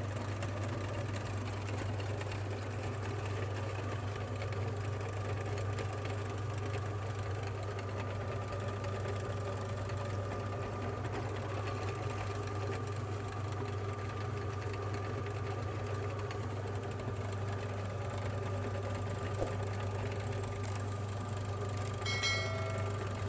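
Electric meat grinder running steadily, its motor giving a constant low hum as it grinds Oreo cookies. A short higher-pitched tone sounds near the end.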